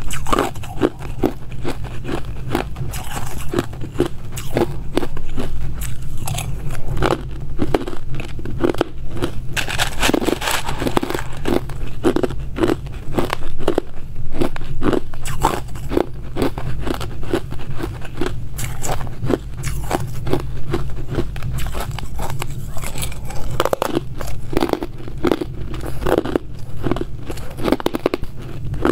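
Hard ice cubes being bitten and chewed close to the microphone: a rapid, continuous run of crisp crunches and cracks, several a second.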